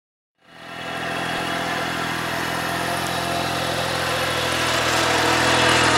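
An engine running steadily, coming in about half a second in and growing a little louder toward the end.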